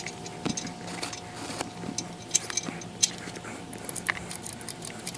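Light, irregular clicking and rattling of tie-down strap hardware, the hooks and buckle of a motorcycle strap being worked by hand.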